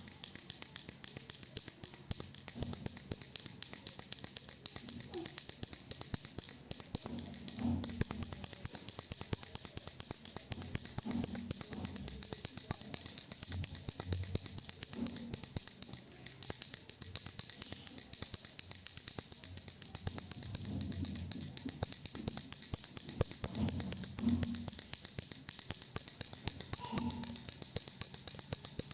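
Puja bell (ghanti) rung continuously and rapidly, giving a steady, high, unbroken ringing. It breaks off for a moment about sixteen seconds in.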